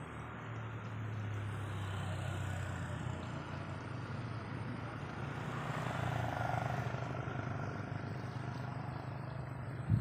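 A distant engine humming steadily, growing louder toward the middle and easing off again, with a sharp knock at the very end.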